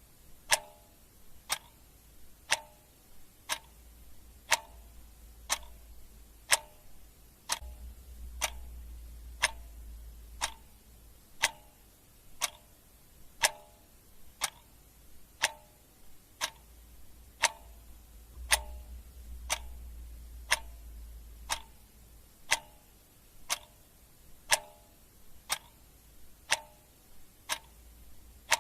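Clock ticking sound effect: a steady tick about once a second, the ticks alternating slightly in tone like a tick-tock, over a faint low rumble.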